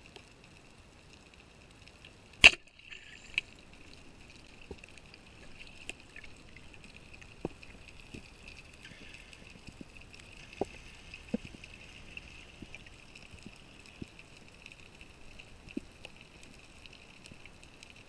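Underwater ambience heard through a camera housing: a faint steady hiss with scattered sharp clicks, and one loud click about two and a half seconds in.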